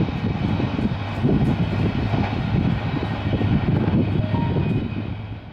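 Passenger train rolling past at speed: a steady heavy rumble of wheels on rail with irregular clacks over the rail joints, fading out at the very end.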